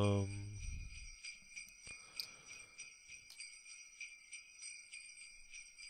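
Faint jingle bells shaken in a steady, even rhythm, as a looping background track. A loud, low buzzing tone carries over into the opening and dies away within the first second.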